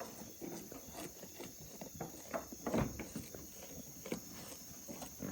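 Goats moving about and eating at their feed, making scattered soft knocks, rustles and shuffling steps. Under them runs a steady high chirring of night insects.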